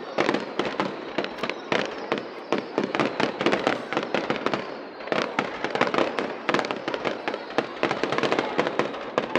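Aerial fireworks going off in a dense, continuous crackle of overlapping bangs and pops, with a brief lull about five seconds in.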